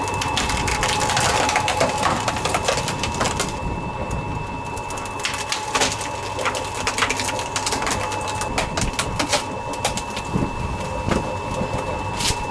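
A wood-processing machine running with a steady whine while wood cracks and splinters in it, with many sharp snaps throughout.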